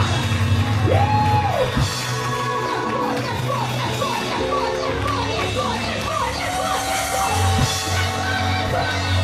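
Loud live gospel praise-break music: quick repeated melodic runs and long held notes over a heavy steady bass, with voices yelling from the congregation.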